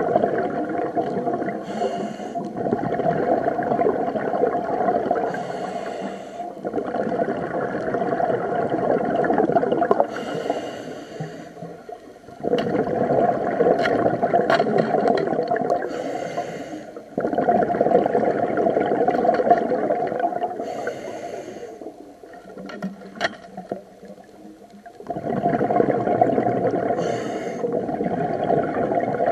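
A diver breathing through a scuba regulator: a short hiss on each inhale, then a long burst of bubbling exhaust on each exhale, in a steady cycle about every four to five seconds. A few sharp clicks come in the middle, and there is a quieter pause in the breathing near the end.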